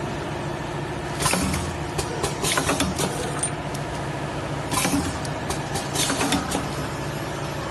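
Ice pop packing machine running: a steady motor hum with repeated clacks and short bursts of hiss from its sealing and cutting mechanism as it forms and cuts the back-sealed film tube into pouches.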